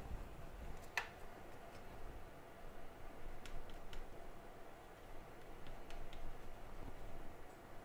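Small clicks and ticks of hand tools being handled during bench work on a circuit board: one sharp click about a second in, then a few fainter ticks, over a faint steady hum.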